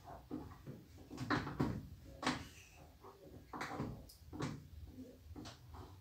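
Laundry being handled at a front-loading washing machine's open drum: an uneven series of short knocks and rustles, roughly one a second.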